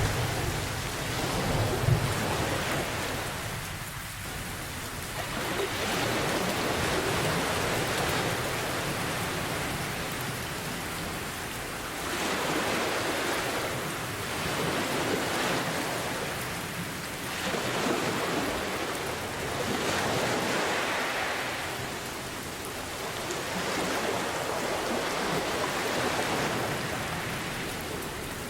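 Steady rain with ocean waves washing in and drawing back in slow swells every few seconds. A low roll of thunder fades out in the first couple of seconds.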